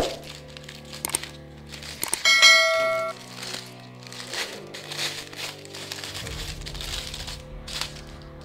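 Clear plastic packaging bag crinkling in irregular crackles as it is handled and pulled off a pair of safety glasses, over soft background music. A bell-like ding rings loudly for about a second a little after two seconds in.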